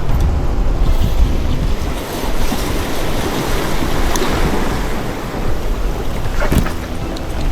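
Sea waves washing in on the shore, the rush swelling through the middle and easing off, with wind rumbling on the microphone and a couple of light taps.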